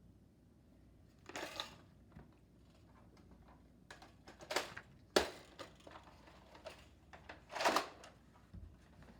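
Plastic Nerf blasters being handled: three short rustling, crunching bursts and one sharp click a little past halfway.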